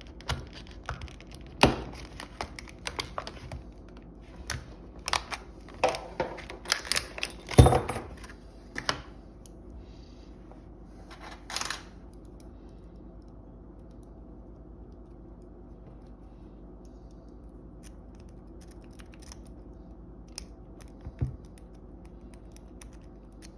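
Plastic blister packaging of a Master Lock No. 3 padlock being opened by hand: a busy run of clicks, snaps and crinkles for about the first twelve seconds, with a few loud cracks around two and eight seconds in. After that there is only a faint steady hum and an odd single click.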